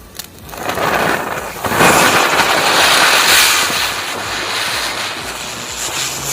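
A Diwali firecracker burning with a loud, rushing hiss that swells about a second in and keeps going, after a small click at the start.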